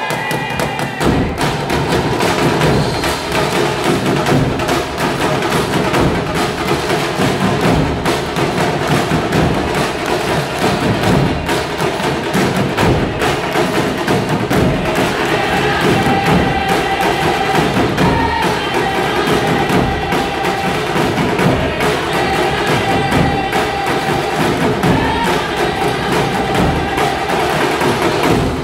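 Large percussion ensemble of stick-played, shoulder-slung double-headed drums playing a dense, fast, driving rhythm together. About halfway through, a sustained pitched melody line comes in over the drumming.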